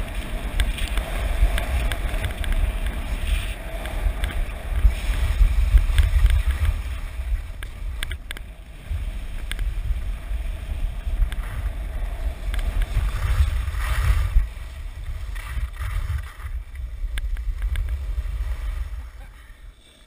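Wind buffeting a body-worn camera's microphone while skiing fast downhill, a heavy low rumble mixed with the hiss and scrape of skis on packed snow. The rushing dies away near the end as the skier slows.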